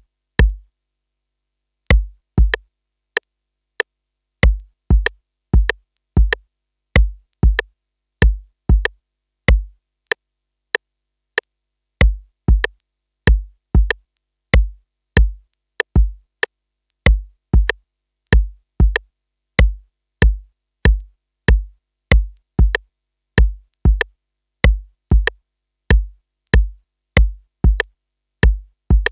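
Sampled electronic kick drum looping in a step-sequencer pattern, one hit on every beat: a deep thump with a sharp click on top, a little under two hits a second. Playback stops briefly twice, near the start and about ten seconds in, then carries on.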